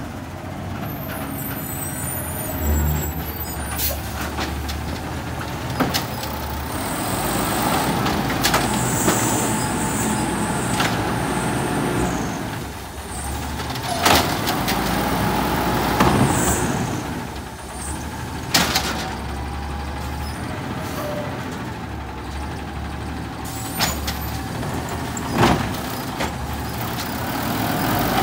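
Natural-gas automated side-loader garbage truck running close by: it pulls up with hisses of its air brakes, and its hydraulic arm grabs, lifts and empties a wheeled trash cart. Sharp knocks and bangs from the cart and falling trash come several times over the engine.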